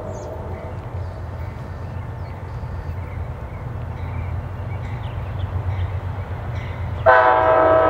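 Amtrak P42DC diesel locomotive approaching with a low, steady engine rumble. About seven seconds in, its air horn sounds a loud chord that starts suddenly and is still sounding at the end.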